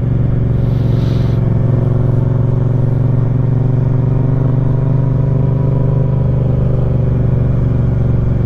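Motorcycle engine running at steady revs, heard close up from the bike, with an even, unchanging drone.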